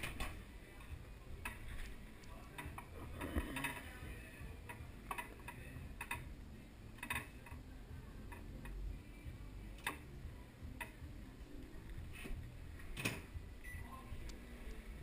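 Irregular clicks and light knocks of kitchen items being handled, among them a microwave door being worked.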